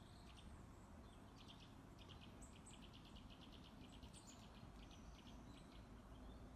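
Faint outdoor hush with a small bird's quick, high chirps repeating in a run for several seconds.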